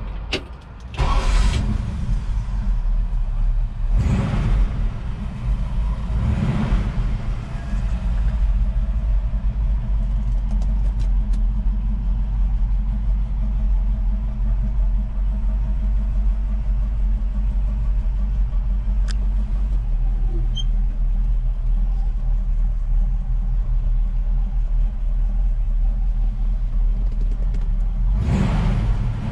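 1950 Ford F2 pickup's flathead V8 starting about a second in, then revved a few times before settling into a steady, low, even idle, with one more rev near the end. Heard from inside the cab.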